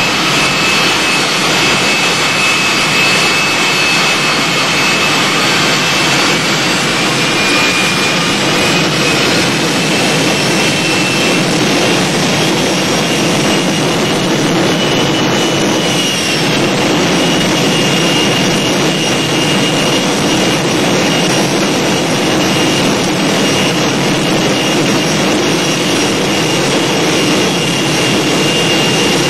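Westinghouse jet engine fitted to a school bus, running steadily: a loud rush with a high turbine whine that shifts a little in pitch now and then.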